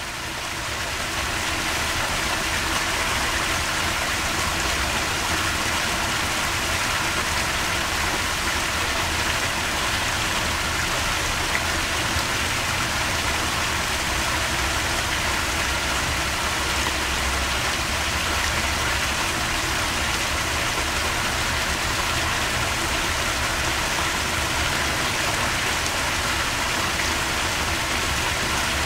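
Steady rush of running water in a garden pond, with a low, even rumble underneath; no frog calls.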